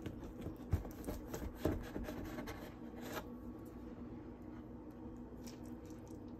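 Kitchen knife sawing through a pizza's crust in its cardboard box: scraping, crackling strokes with two sharper knocks in the first couple of seconds, then a few fainter clicks.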